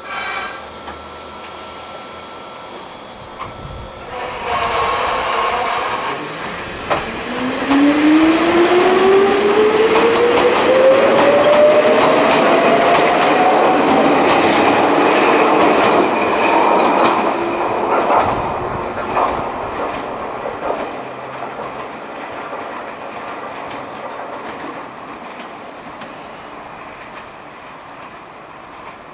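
Ichibata Electric Railway 3000 series (ex-Nankai 21000 series) electric train pulling out and accelerating: a motor whine rises steadily in pitch, with wheels clicking over rail joints, and then fades as the train draws away.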